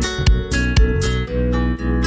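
Background music: plucked acoustic guitar strums over a steady bass with a regular beat.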